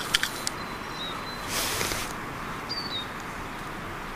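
Steady outdoor background hiss, with a few light clicks in the first half second and a brief rustle about one and a half seconds in, likely from a hand handling a thin, bent tin-can lid.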